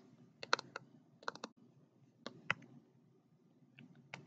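Faint, sharp clicks and taps of a pen stylus on a tablet screen while handwriting, coming in small clusters with short pauses between.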